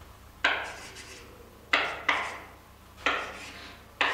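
Chalk writing on a blackboard: about five separate strokes, each starting with a sharp tap of the chalk and fading in a short scrape.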